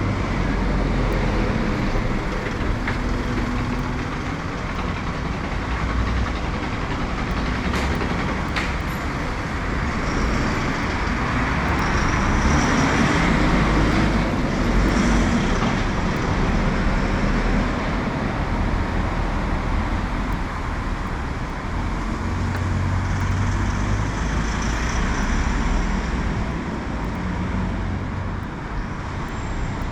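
City street traffic: a steady low rumble of passing vehicles, with one vehicle going by, getting louder and then fading, about halfway through.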